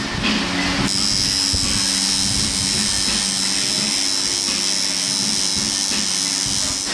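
Electric tattoo machine buzzing steadily as it works the skin, a low even buzz with a high whine over it that grows stronger about a second in.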